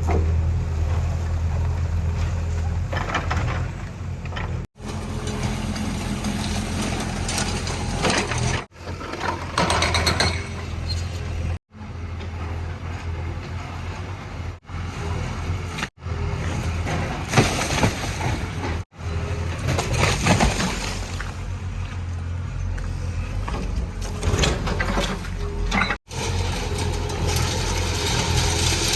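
JCB 3DX backhoe loader's diesel engine running steadily under work, with louder bursts of noise from the digging and breaking every few seconds. The sound drops out briefly several times.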